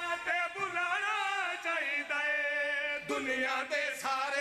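Men chanting a devotional qasida for Imam Hussain: a lead male voice with others joining in, singing long held, wavering notes.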